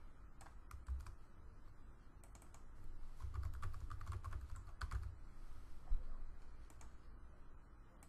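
Typing on a computer keyboard: scattered keystrokes, with a quick run of keys about three to five seconds in.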